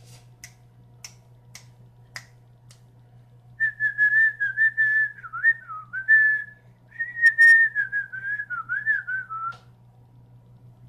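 A person whistling a wavering tune for about six seconds, with a short break in the middle, after six sharp clicks about half a second apart. A steady low hum runs underneath.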